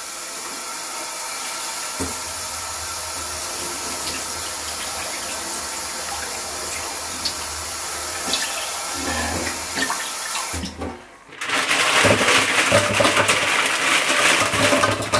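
Kitchen tap running steadily into a stainless saucepan of basmati rice as the rice is rinsed, stopping about ten and a half seconds in. Then a plastic bag crinkles loudly, with light knocks, as broccoli is tipped from it into a steel pot.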